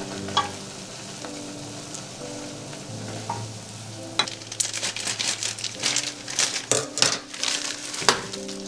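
Vegetables sizzling in a frying pan while being stirred, the crackle growing busier and sharper about halfway through, over soft background music.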